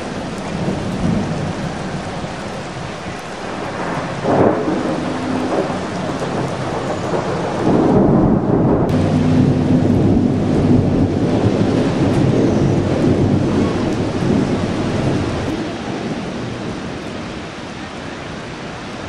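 Heavy rain pouring down, with a low rumble that swells about eight seconds in and fades again near the end, and a brief sharp knock about four seconds in.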